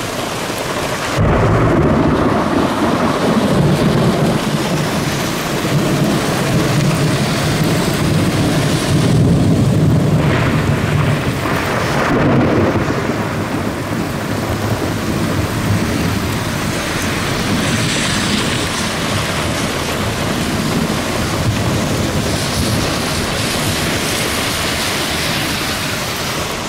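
Thunder cracks about a second in and rumbles on for roughly ten seconds before easing, over steady heavy rain pelting the vehicle, heard from inside the vehicle.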